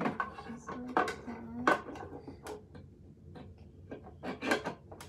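Hard plastic clicks, knocks and rattles of a toy camper's seat being handled and pushed back into place, irregular, with the loudest knocks about a second and a half in and again about four and a half seconds in.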